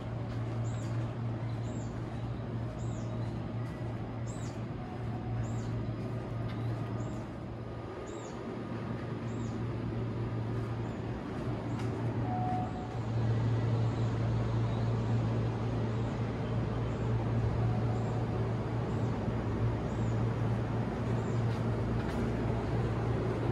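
Stopped Seibu Laview electric train's onboard equipment giving off a steady low hum at the platform, which grows louder about halfway through. A high chirp repeats about twice a second over it and fades after the first half.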